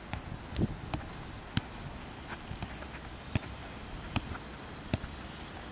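A football being kicked in quick short passes back and forth: a string of sharp kicks, roughly one a second, over a faint outdoor background.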